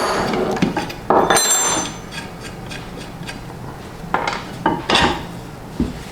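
Metal clanking and scraping as tools work on the cast metal pressure pot to take its top off, with a few sharp clinks that ring briefly.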